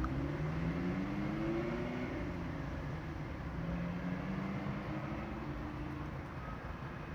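Car engine running under light acceleration, its hum rising in pitch over the first two seconds, dropping, then rising again before settling.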